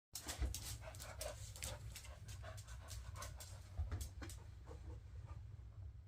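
Cocker spaniel panting in quick, short breaths, over a low steady hum.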